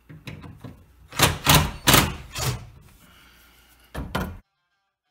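Cordless impact driver backing out an old wood screw that holds a chest top to its frame, in several short loud bursts of hammering. The sound cuts off suddenly about a second before the end.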